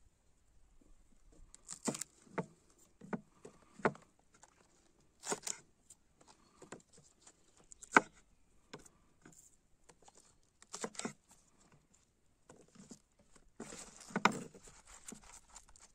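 Irregular knocks, taps and clatters of objects being handled and set down, with the sharpest knock about halfway through and a busier stretch of rustling and clattering near the end.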